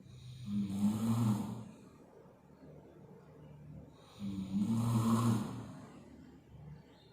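A heavy-set person snoring loudly: two long, buzzy snores about four seconds apart, each lasting over a second, with quieter breathing between them.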